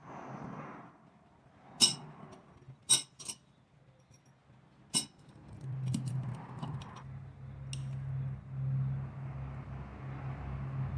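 Sharp metallic clinks of motorcycle clutch basket parts and rivets being handled during reassembly: four loud clinks in the first five seconds, then lighter ticks. A steady low hum comes in about halfway.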